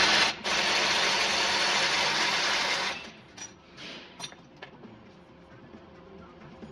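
A power tool runs in one burst of about three seconds at a truck's front wheel hub, with a brief break just after it starts. A few light metal clinks follow.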